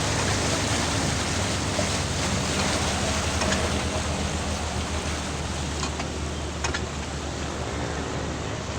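Vehicle driving through a flooded street: a steady rush of water with a low engine hum underneath. A few short clicks come in the second half.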